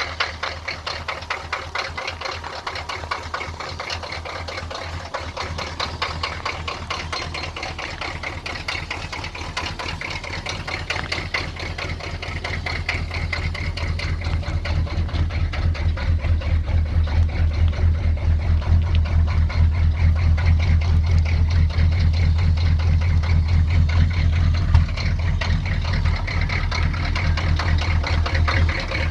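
GM 6.2-litre diesel V8 idling roughly just after a cold start, with a rapid, even diesel clatter. A low drone under the clatter grows louder about halfway through.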